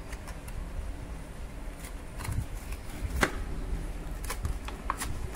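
Plastic blister packaging crackling and clicking as it is pulled open by hand, over a low steady rumble, with one sharp crack about three seconds in and a few more near the end.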